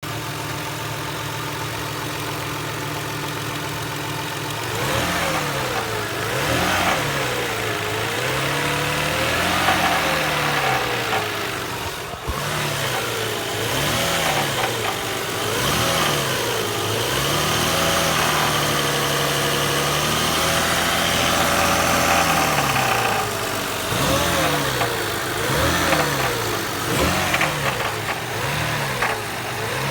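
1999 Toyota Harrier's engine idling steadily, then revved up and back down over and over from about five seconds in, held at higher revs for several seconds in the middle. It carries the knocking sound the owner is asking about, cause unknown.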